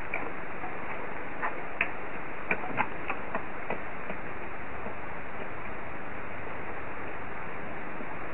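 Steady hiss of pouring rain, with a scattering of sharp ticks from drops striking close by in the first few seconds, heard through a security camera's microphone.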